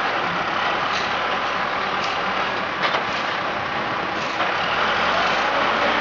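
Heavy machinery engine running steadily, with a few short sharp knocks, the loudest a quick pair near the middle.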